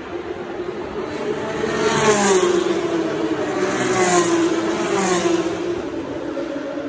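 Formula 3 cars' Mecachrome 3.4-litre V6 engines running hard on the track. The engine note falls in pitch several times, and it is loudest about two and four seconds in.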